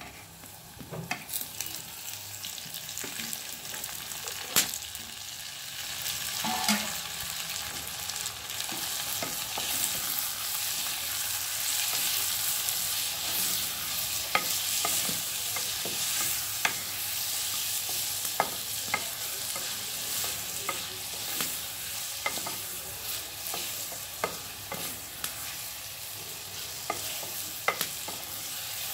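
Chopped tomatoes and browned onions frying with a steady sizzle in a terracotta pan while a wooden spoon stirs them, knocking and scraping against the clay now and then. The sizzle swells over the first several seconds and then holds. This is the onion-tomato tempering (tadka) for the dal.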